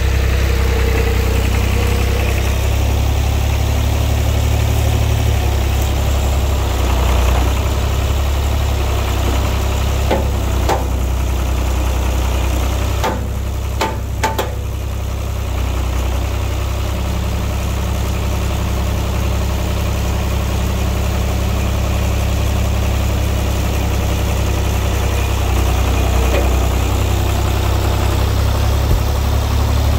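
An engine running steadily without revving, with a few short clicks or knocks around the middle.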